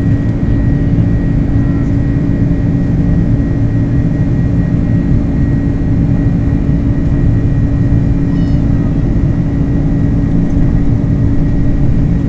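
Jet airliner's engines and rushing air heard from inside the passenger cabin: a loud, steady drone with a constant hum running through it.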